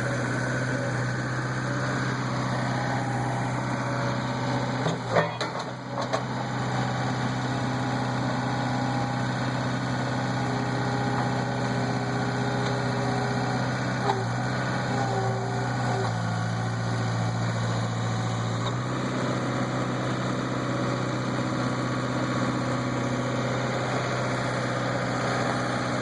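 Skid steer engine running steadily while working the hydraulics of a backhoe bucket and thumb attachment. There are a few knocks about five seconds in, and the engine note drops for a few seconds past the middle.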